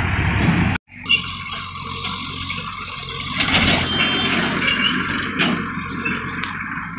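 Tractor diesel engine running as the tractor drives across a field, with a steady low hum and a rough noisy hiss; the sound breaks off for a moment about a second in and resumes.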